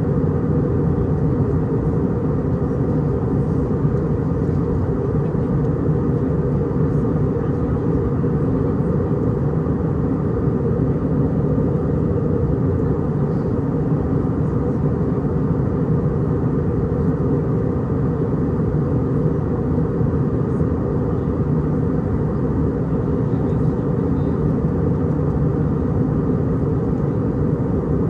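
Steady cabin noise of an Airbus A319-100 on approach, heard inside the cabin: a low rumble of engines and airflow with a few steady hum tones, unchanging throughout.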